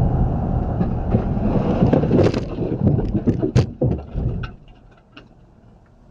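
Landslide rockfall: a loud rumble with many knocks and thuds of tumbling rocks, dying away about four and a half seconds in, followed by a couple of faint knocks.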